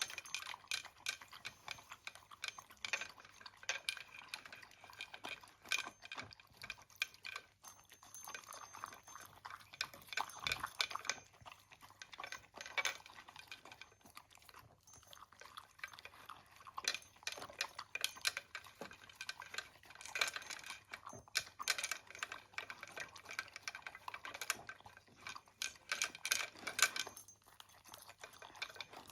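A pet eating its breakfast from a bowl: a rapid, irregular run of small crunches and clicks of food and dish, with a couple of brief pauses.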